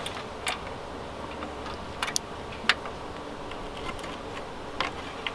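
Plastic bumper retainer clips on a Honda Civic being pried out with a flathead screwdriver: a handful of sharp clicks at irregular intervals.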